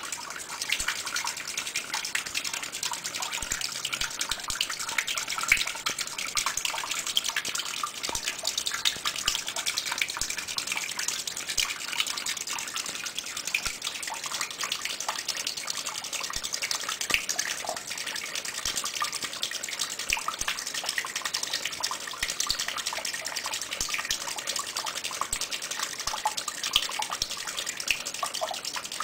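A stream of running water pouring and splashing steadily onto the spinning plastic blades of a small homemade hydroelectric turbine wheel, a continuous hiss with many small splashes and drips through it.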